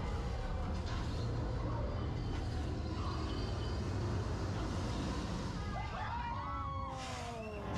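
Flight-simulator ride audio: a steady deep rumble under a wash of noise, with several overlapping calls gliding downward in pitch from about six seconds in.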